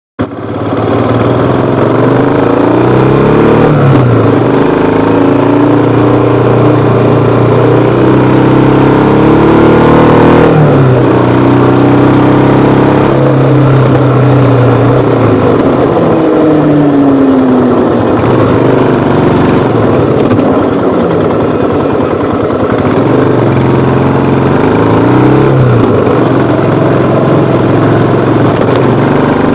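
Royal Enfield Himalayan BS6's 411 cc single-cylinder engine heard while riding. The exhaust note climbs in pitch and then drops back several times as the bike accelerates and shifts gears.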